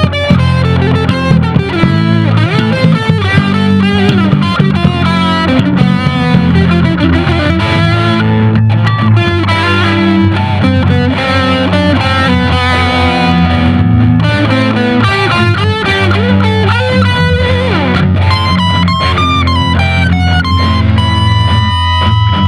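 Electric guitar playing a lead line in an A minor blues over a steady bass backing, with bent notes. Near the end it settles on one long sustained note with vibrato.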